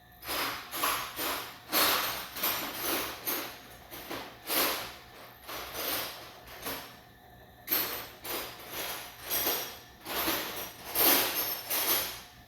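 Metal hand tools rattling and clanking in a tool drawer, a string of irregular scraping clatters about one or two a second, as of someone rummaging for a wrench.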